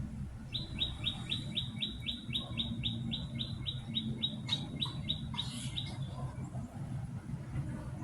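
A small bird calling in a fast, even run of short, high chirps, about four or five a second, that stops a little past halfway, over a low steady hum.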